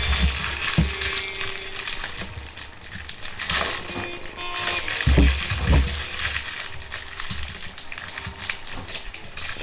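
Foil trading-card pack wrappers crinkling and crackling as they are handled and opened, with a few dull thumps on the table. Faint background music underneath.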